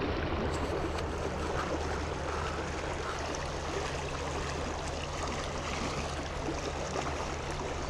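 Shallow creek water flowing steadily over rocks and riffles.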